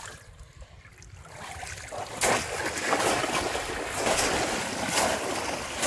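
Shallow pond water splashing as people wade fast through it and plunge a bamboo polo fish trap into it. A rush of splashing starts about two seconds in, with several louder splashes.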